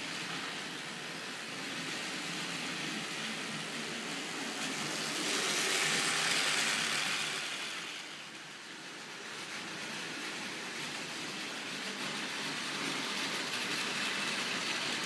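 Plarail battery-powered toy train running on plastic track: a steady whirring and rattling of the motor and wheels. It grows louder about six seconds in as the train passes close, then drops back.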